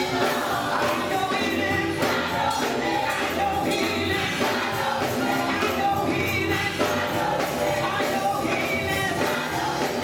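Gospel choir singing with a band, a tambourine keeping a steady beat.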